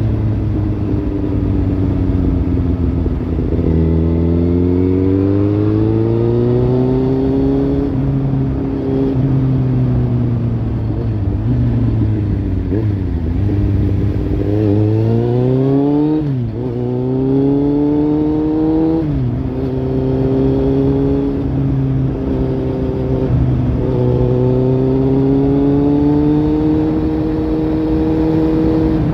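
Kawasaki Z800's inline-four engine through a Lextek slip-on exhaust, pulling and revving up and down. The pitch climbs in several long rises, broken by a few sudden drops, like gear changes, and steady stretches in between.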